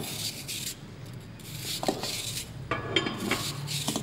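Knife slicing a peeled apple held in the hand, in a few short crisp scraping strokes, with several light clicks on a glass plate.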